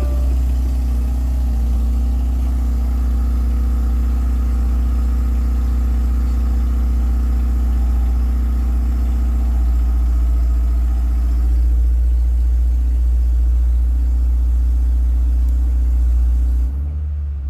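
Subaru WRX's turbocharged flat-four boxer engine idling steadily, with the weird sound that the owner suspects is an exhaust leak. About a second before the end the sound drops in level and loses its upper hiss.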